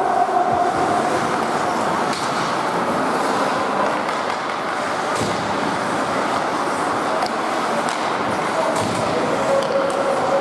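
Ice hockey in play: a steady rush of skates on the ice, with a few sharp clacks of sticks and puck in the middle and a held shout near the start and again near the end.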